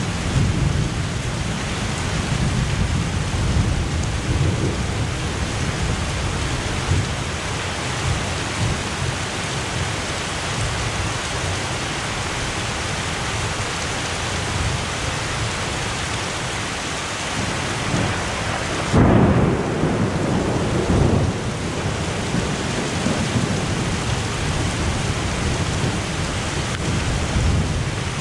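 Heavy thunderstorm downpour, the rain pouring steadily. About two-thirds of the way in, thunder rumbles loudly for a few seconds.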